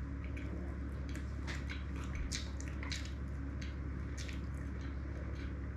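A person chewing a bite of peinirli, a Greek boat-shaped bread pie filled with kasseri cheese and salami, close to the microphone: wet, squishy mouth sounds with many small irregular clicks.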